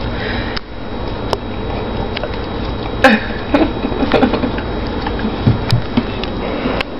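Dog licking and snuffling at a small child's face: scattered wet clicks and a few short louder bursts over a steady hiss.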